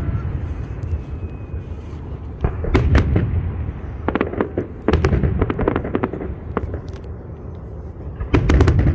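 Fireworks salute: shells bursting with deep booms and crackling, in clusters every few seconds, loudest about three seconds in, around five seconds, and again near the end.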